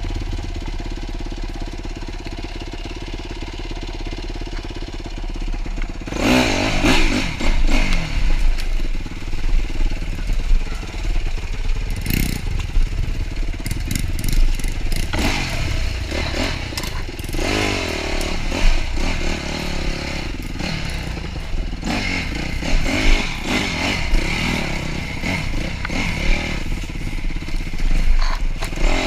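Four-stroke dirt bike engine idling steadily, then revved up and down repeatedly as the bike rides over a muddy trail, with rattling clatter from the bike.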